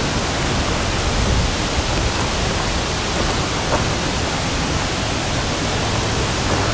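Steady rushing of falling water, an even, unbroken noise with no distinct events.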